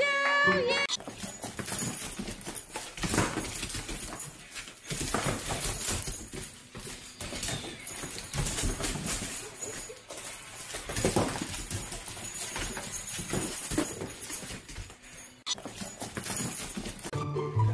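Dogs ripping open Christmas presents: wrapping paper tearing and crinkling in irregular bursts.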